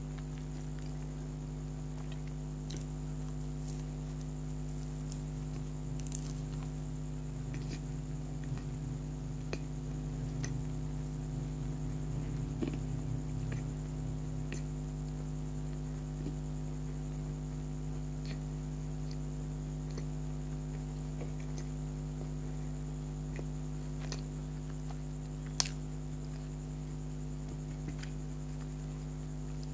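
Soft, wet chewing of a donut, with faint squishy mouth sounds and scattered small clicks and one sharper click near the end, over a steady electrical hum.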